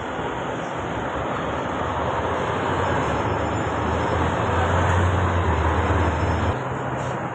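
A motor vehicle's engine running close by over steady outdoor traffic noise. Its low hum grows louder, then stops suddenly about six and a half seconds in.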